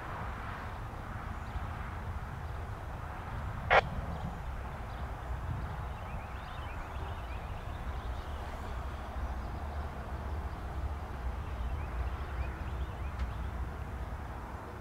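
Low, steady rumble of a distant CSX intermodal freight train's diesel locomotives. A single sharp click comes just under four seconds in.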